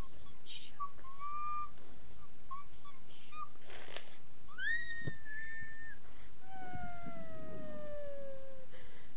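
A boy's high-pitched mock whimpering: a few short squeaks, then a rising wail held for about a second, then a long, slowly falling whine.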